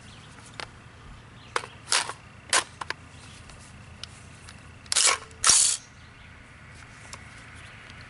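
Smith & Wesson M&P15 AR-15 rifle being loaded: a few sharp clicks and clacks as the magazine goes into the magazine well and is seated, then two loud metallic clacks about five seconds in as the action is worked to chamber a round.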